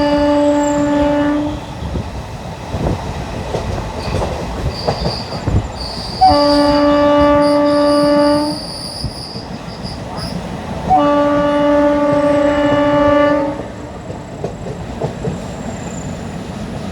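WCAM2 electric locomotive's horn sounding three long steady blasts about five seconds apart; the first is already sounding and ends about a second and a half in. Between the blasts, ICF coach wheels clickety-clack over the rail joints.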